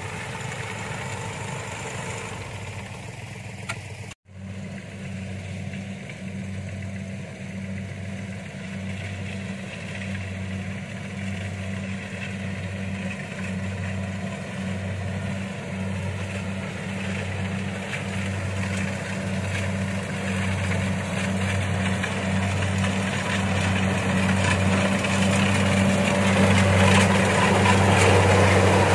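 Engines running steadily: at first the rice-hauling sled's engine, then after a short break a deep, evenly pulsing engine throb that grows louder as a Kubota DC-70 combine harvester comes close.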